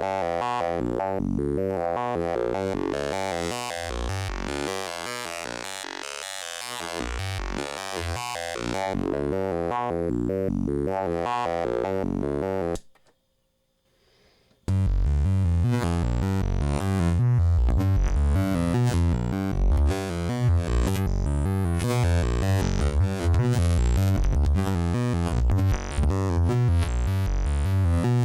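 Home-built wavetable synthesizer oscillator, built from a flash memory chip with no CPU, playing a run of quickly changing synth notes from a wavetable. It cuts out for about two seconds midway, then comes back with a louder, bassier tone.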